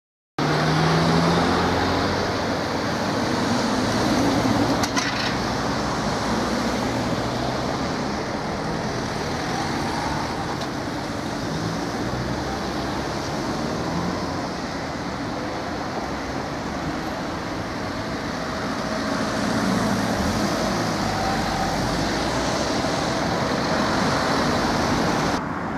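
Steady road traffic noise from passing cars, a continuous rush with faint engine hum, starting abruptly just after the start.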